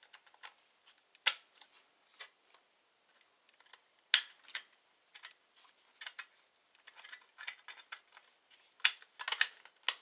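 Sharp clicks and taps as the Lenovo Legion Y720's metal RAM shield is fitted back over the memory slots and pressed down into place by hand, with a run of quicker clicks near the end.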